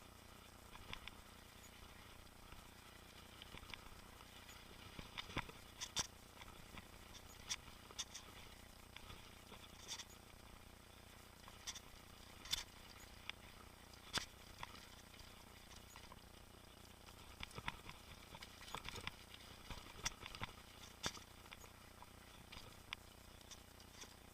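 Faint, irregular clicks and rattles from a mountain bike riding a rough trail, over a low steady hiss.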